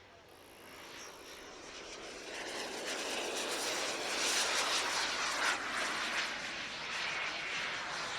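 Small gas-turbine jet engine on a radio-controlled model glider flying by: a rushing hiss that builds over a few seconds and then stays loud.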